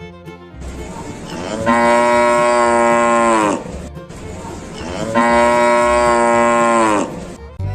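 Cow mooing twice: two long moos about a second and a half apart, each holding a steady pitch and dropping at the end.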